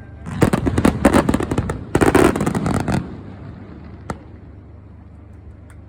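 Aerial fireworks crackling: a dense run of rapid pops and cracks for about three seconds, in two close bursts, then a single sharp crack about four seconds in.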